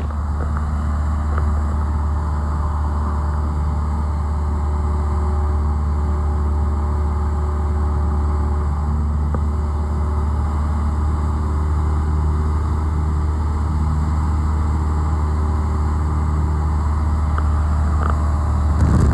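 Cessna 172's piston engine and propeller running steadily in flight, heard from inside the cabin as an even low drone.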